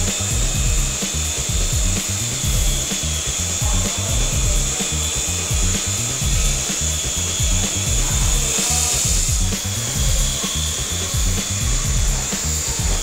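Background music with a pounding, evenly repeating bass beat, and a steady high whine laid over it.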